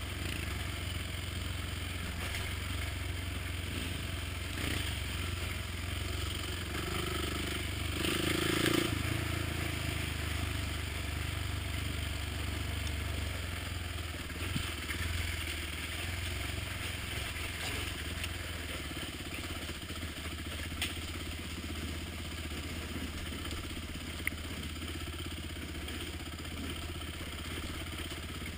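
ATV engine running with a steady low drone while riding a rough dirt trail, with the machine rattling over the ground. The engine swells louder about eight seconds in, and a few sharp knocks come later.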